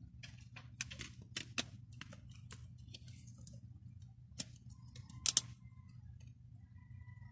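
Hard plastic clicks and taps of a CD and its jewel case being handled, a quick run of small clicks first, then the disc pressed onto the case's centre hub with a sharp double click, the loudest sound, about five seconds in.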